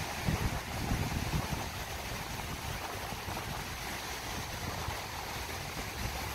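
Wind buffeting a phone's microphone in uneven low gusts, over a steady hiss of rippling river water.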